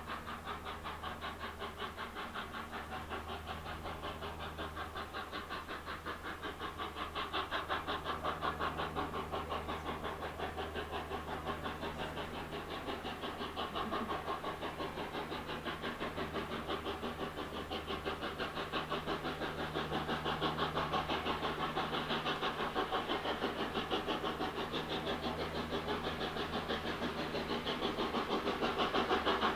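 Railway locomotive running with a steady low hum and a fast, even beat, growing slightly louder near the end.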